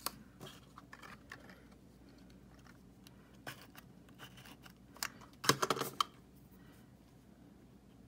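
Small clicks and taps of stationery being handled on a spiral planner: a pen put down and a correction-tape dispenser pressed to the page. A quick cluster of louder clicks comes a little past halfway.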